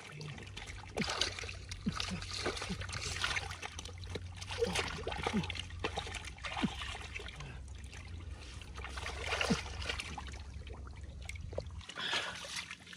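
Water splashing and trickling in irregular sloshes, over a steady low hum.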